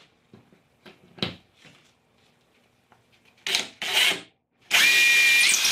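Cordless drill boring a 1/8-inch pilot hole through DensShield gypsum tile backer board. Two short bursts come a little past halfway, then a longer run of about a second and a half with a steady motor whine that rises in pitch near the end.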